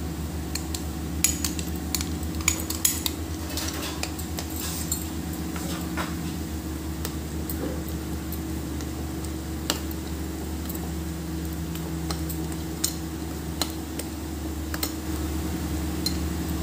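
Metal spoon stirring and scraping chopped vegetables into thick gram-flour batter in a glass bowl, with scattered clinks of spoon on glass, most frequent in the first few seconds. A steady low hum runs underneath.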